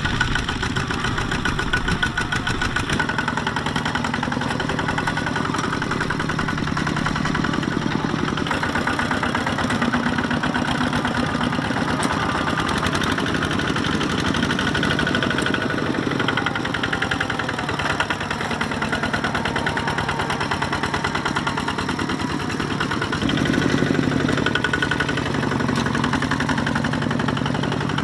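Small tractor's engine running steadily with a rapid, even firing beat, growing louder for a couple of seconds about three-quarters of the way through.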